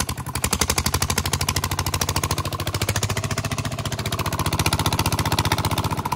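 Stationary single-cylinder diesel engine running steadily with a rapid, even chug, driving a belt-driven pump that lifts water from a bore well.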